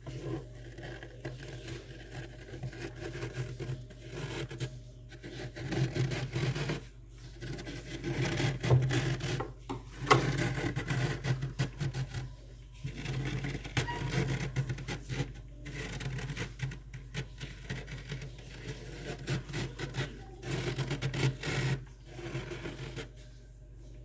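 Bare hand scraping and raking frost off the walls of a freezer compartment: rough scraping in repeated strokes, broken by brief pauses.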